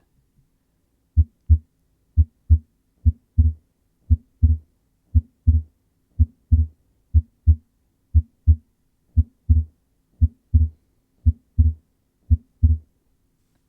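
Heart sounds beating about once a second, each beat a lub-dub pair of low thumps, demonstrating paradoxical (reversed) splitting of the second heart sound, in which pulmonary valve closure comes before aortic valve closure. The beats start about a second in.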